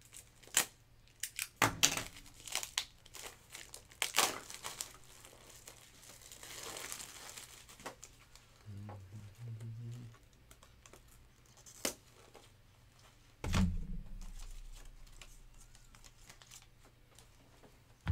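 Plastic wrapping crinkling and tearing as a jumbo pack of plastic card top loaders is opened, with a flurry of sharp crackles and clicks at first and a single thump about two-thirds of the way through.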